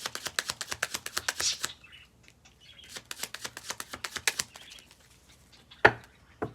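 Tarot cards being shuffled by hand: a fast run of rapid card flicks for the first couple of seconds, then fainter scattered flicks, and one sharp tap near the end.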